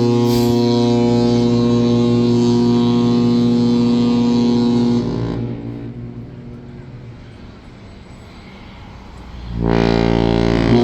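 Cruise ship horn sounding a long, deep, steady blast of about five seconds that dies away with echoes, then a second blast starting near the end.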